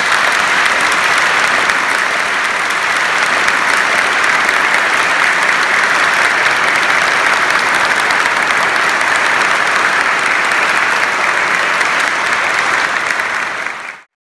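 A large group of people clapping: sustained, steady applause that fades out just before the end.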